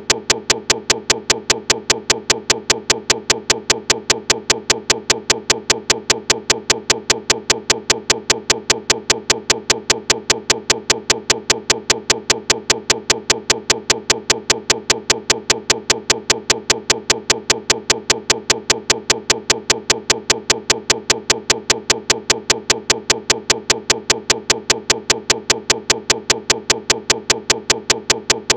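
Steady, evenly spaced clicking, roughly four clicks a second, that never varies in pace or loudness.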